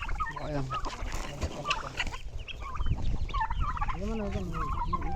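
A flock of turkeys and chickens calling, with many short calls overlapping one another.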